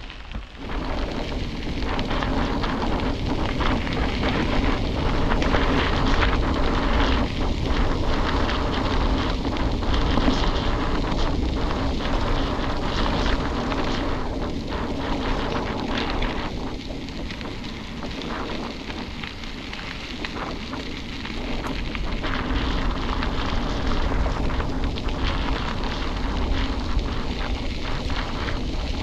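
Wind buffeting an action camera's microphone while riding a mountain bike, a steady rumbling noise with strong low end.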